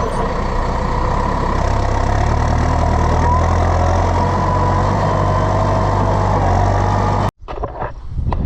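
Tractor engine running steadily and loud, with a slight drift in pitch. It cuts off abruptly about seven seconds in, leaving quieter scattered knocks.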